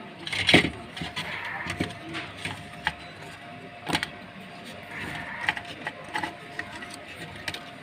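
Scattered clicks and light knocks from a set-top receiver's power supply board and casing being handled and fitted. The loudest knock comes about half a second in.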